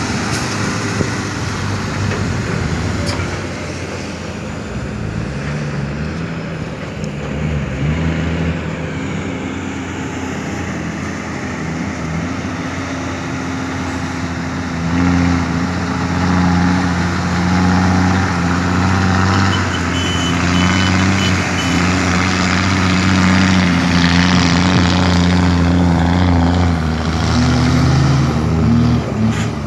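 Heavy diesel engines of a Kobelco SK200 excavator and a ten-wheel dump truck working under load, getting louder about halfway through.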